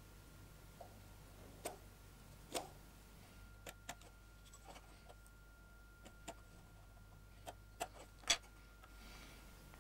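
Scattered light taps and clicks of a mechanical pencil and a small wooden dovetail template knocking against the workpiece and bench as they are handled for marking out. About a dozen irregular taps, the loudest near the end.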